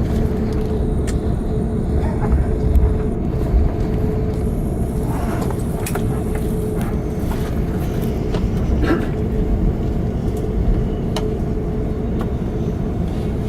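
Airbus A380 cabin noise on the ground just after landing: a steady low rumble from the wheels and engines under a constant hum, with scattered clicks and rattles from the cabin.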